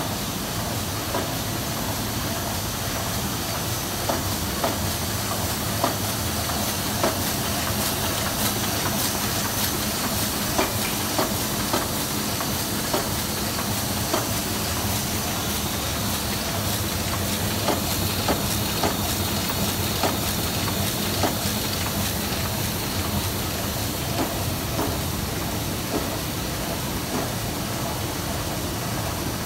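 MAN Roland R 204E four-colour sheetfed offset press running: a steady mechanical hum with a hiss of air, and sharp clacks every second or so.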